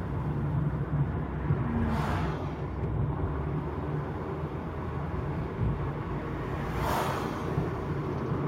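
Peugeot 307 CC convertible driving with the roof down: steady engine and road rumble with wind noise, and two brief rushing swells about two and seven seconds in.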